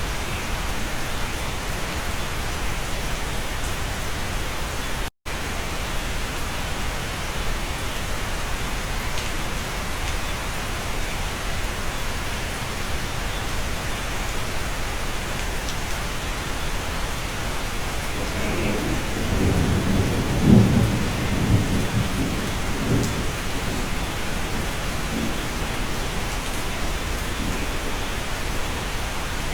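Steady rain heard from inside a cabin, with a low rumble of thunder that swells and fades over about four seconds past the middle. The sound drops out for an instant about five seconds in.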